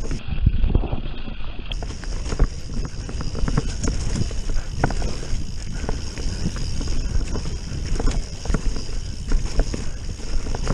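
2017 Canyon Strive enduro mountain bike ridden fast down a dirt forest trail: a constant low rumble of tyres over the ground, with many sharp rattles and knocks from the chain and frame.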